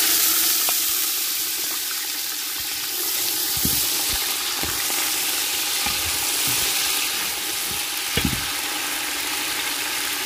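Sliced red onions frying in hot oil in a large steel pot, a loud steady sizzle as they are tipped in and stirred with a wooden spoon, with a few low knocks around the middle and near the end.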